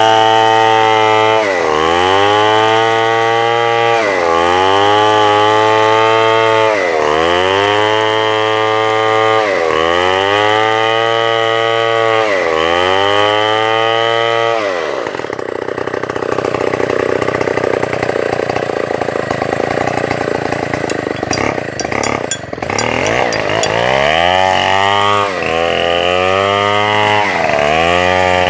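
Chainsaw engine running loud, its pitch dipping and climbing back about every two seconds. About halfway through it settles to a lower, rougher running for several seconds, with a few sharp knocks. Near the end the rising and falling revs return.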